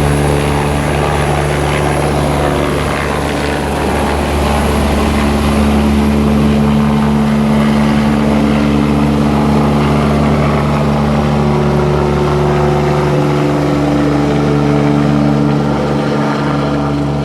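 Helicopter running close by: a loud, steady drone of rotor and turbine with steady low tones, rising slightly a few seconds in and holding level.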